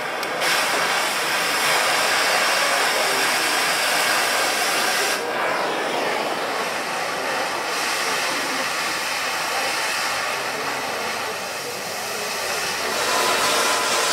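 Oxy-fuel cutting torch hissing steadily as it burns through steel, with a short dip about five seconds in.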